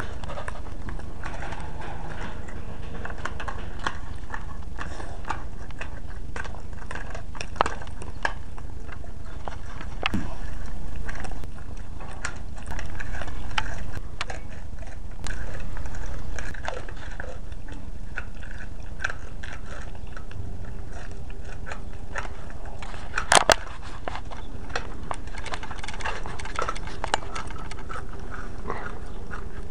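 Dog licking and chewing wet cat food out of a small tin can, a run of small clicks and smacks over a steady background noise, with a louder cluster of clicks about two thirds of the way through.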